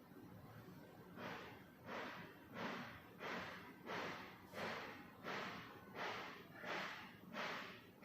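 Portable fan-humidifier giving off regular puffs of hissing air, about one every 0.7 seconds, starting about a second in.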